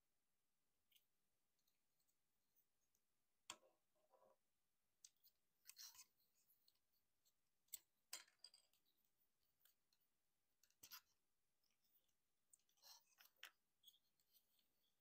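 Plastic joints and panels of a Transformers Optimus Prime action figure clicking and snapping as it is folded from robot into truck mode: faint scattered sharp clicks, some in quick little clusters.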